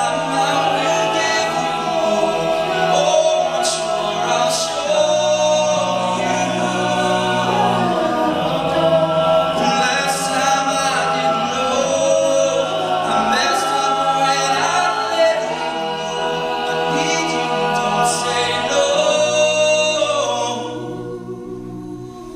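Men's a cappella group singing live: a lead voice over layered backing vocals and low held bass notes, with no instruments. The chords change every few seconds, and the sound thins out about two seconds before the end.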